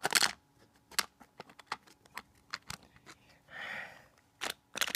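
Plastic toy playset being worked by hand, its tower lift mechanism for a toy car giving a string of light plastic clicks and knocks, with a short soft rustle a little past halfway.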